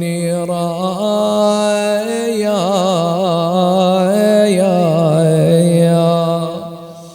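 A man's solo voice chanting an Arabic Husayni elegy, drawing out the closing word of a line ('bil-ahzan') in one long ornamented phrase that wavers in the middle and dies away near the end.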